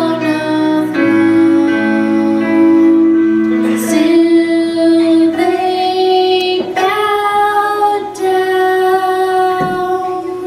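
A high voice singing over instrumental accompaniment, holding long notes.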